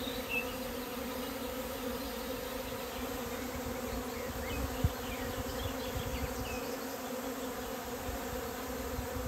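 Honeybee colony buzzing at its hive during swarming: a steady, even hum. The excitement of the swarm keeps the bees left in the hive stirred up.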